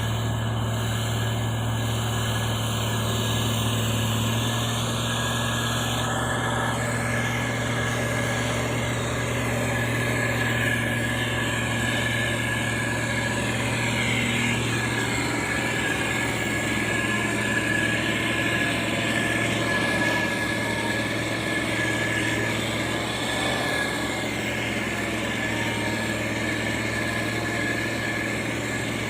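Diesel engine of a heavy road-construction machine running steadily at constant speed, a deep even hum with a thin steady whine above it.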